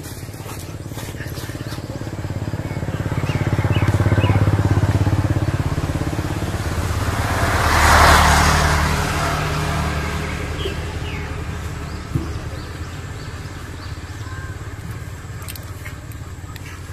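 A motorcycle passes close by. Its engine hum swells, is loudest about halfway through, then fades away.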